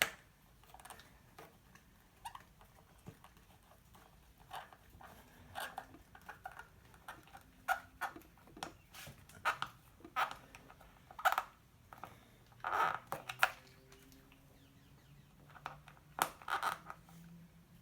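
A wrench working a bolt tight on metal mounting hardware: irregular sharp clicks and taps, a few ringing briefly.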